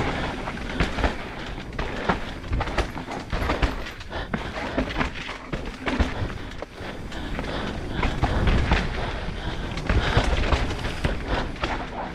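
Enduro motorcycle ridden over a rocky trail, heard from the rider's camera: a constant rush of noise with many irregular knocks and rattles as the bike jolts over rocks.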